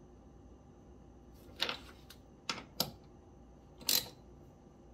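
Ratchet wrench clicking in a few short bursts while tightening the nuts on car battery terminals.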